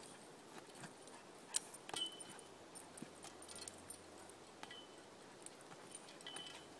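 Faint metallic clinks and jingles from a tetherball set on a metal pole as a corgi bats at the ball. Several clinks leave a short high ring, the strongest about one and a half to two seconds in and again near the end.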